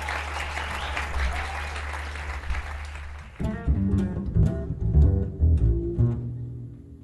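Double bass: a low held note sounds under the last of the audience's applause. About three and a half seconds in, the applause stops and the bass goes into a run of plucked notes.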